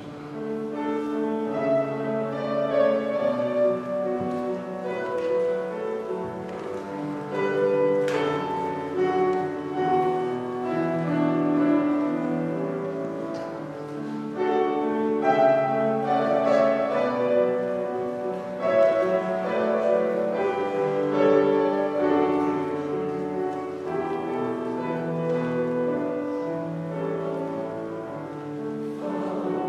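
Piano playing a slow, flowing instrumental passage of held chords and melody notes, with no voices singing.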